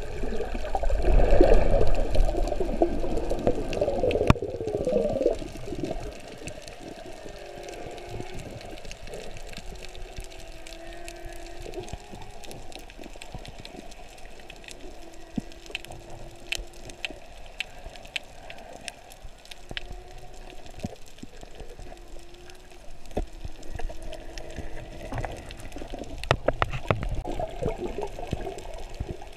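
Underwater sound picked up by a diving camera: water rushing and bubbling, loudest in the first five seconds, then a quieter wash with scattered clicks and faint drawn-out low tones that come and go.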